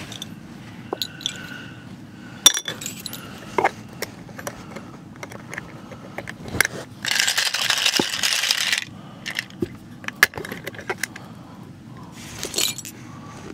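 Steel sewing machine shuttles being handled and put into a glass jar, clinking against one another and the glass in scattered sharp clinks, with a longer run of rattling about seven seconds in that lasts nearly two seconds.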